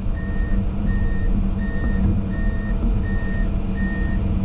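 Excavator's motion alarm beeping steadily, about one beep every three-quarters of a second, over the diesel engine running, heard from inside the cab.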